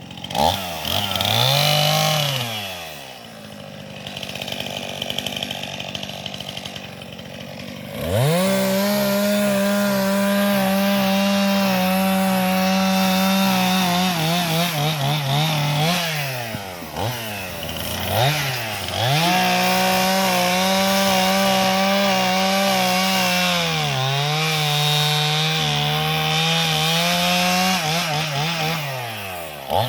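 Two-stroke chainsaw revved briefly, then idling, then run at full throttle for several seconds at a time, cutting wood, with short drops to idle and quick re-revs between cuts. Partway through a long run the engine note sinks lower for a few seconds as the chain is loaded in the cut.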